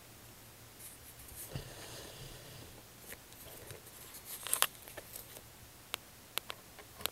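Faint handling noises from a Snoopy doghouse music-box coin bank being touched: a soft scraping rustle, then a cluster of clicks and scrapes, and a few single sharp clicks toward the end.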